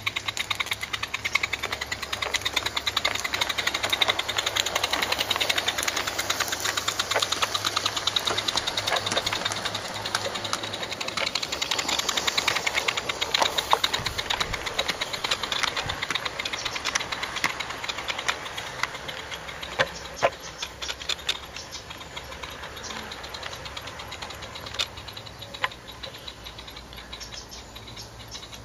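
Mamod SL1 live-steam model locomotive running fast, its exhaust making a rapid, even chuffing. The chuffing is loudest as the engine passes and fades away over the last several seconds, with a few sharp clicks near the end.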